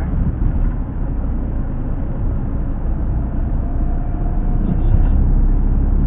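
Steady low rumble of vehicle and traffic noise, picked up through an action camera's built-in microphone.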